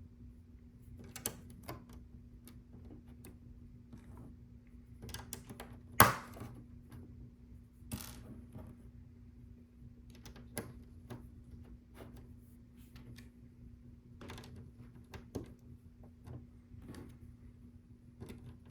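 Small plastic LEGO pieces clicking and tapping irregularly as they are handled and pressed onto the build, with one sharper snap about six seconds in. A faint steady hum runs underneath.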